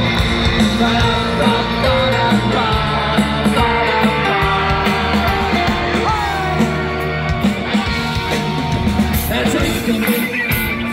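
Live rock band playing loud, punk-style rock music through the speakers on a passing parade float, with singing.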